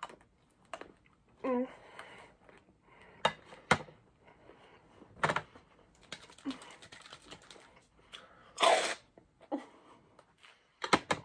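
Crisp bites and chewing of chocolate pretzel bark, a few sharp crunches. About eight and a half seconds in, an aerosol can of Reddi-wip whipped topping is sprayed in a short loud hiss.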